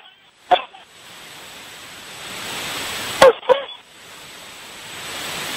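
Rugby forwards' short shouts during a lineout and maul: one about half a second in, then two quick ones just after three seconds, over a steady hiss.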